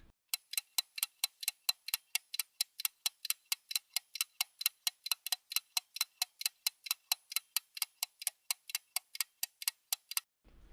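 Clock-like ticking sound effect: even, sharp ticks at about five a second over dead silence, stopping shortly before speech resumes.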